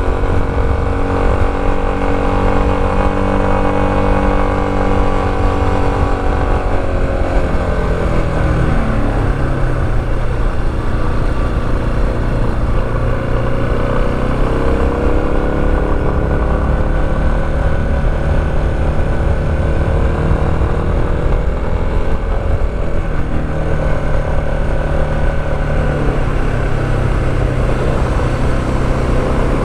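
Motorcycle engine running under way, its pitch falling about seven seconds in, staying low, rising again around fifteen seconds in and dropping once more near the end as the rider changes speed, over a steady low rumble.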